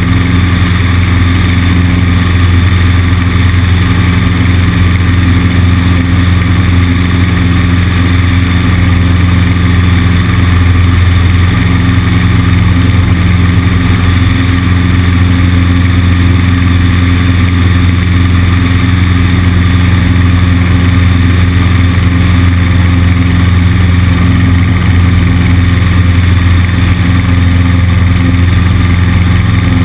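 Cessna 150's four-cylinder Continental O-200 engine and propeller droning steadily in flight, heard from a camera on the wing, with wind noise over it.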